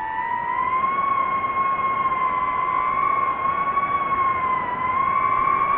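DJI FPV drone's motors and propellers whining at high throttle: a steady high-pitched whine that holds nearly level, dipping slightly in pitch about three-quarters of the way through.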